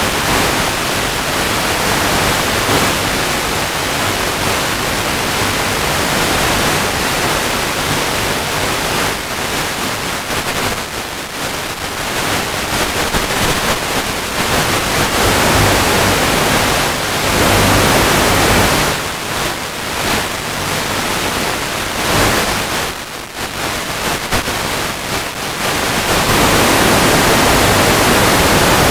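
Loud, even hiss of static on the analog FPV video link's audio channel. It swells and dips as the signal fades with range, then turns louder and steadier near the end as the picture breaks up.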